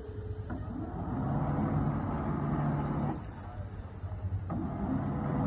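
Leopard motor yacht's engines running with a steady low rumble while it manoeuvres close to the quay. Twice the machinery noise swells sharply louder, first for about two and a half seconds, then again about four and a half seconds in.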